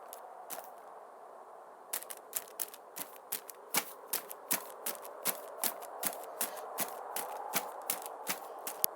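Footsteps crunching quickly and evenly over dry ground, a sharp crunch about three or four times a second from about two seconds in, after a few scattered steps.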